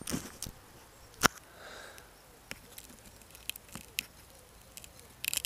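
Handling noise on the crashed quadcopter's onboard camera as it is picked up and carried through the crop: scattered clicks and knocks, one sharp knock about a second in, and a quick flurry of clicks and rustling near the end.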